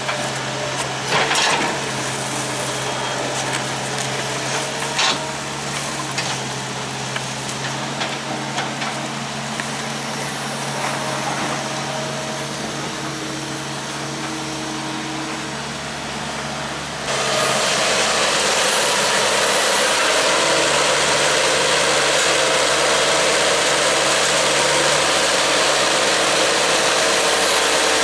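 Engine of earthmoving equipment running steadily, with a few sharp knocks in the first seconds. About 17 seconds in it turns suddenly louder and harsher and holds there.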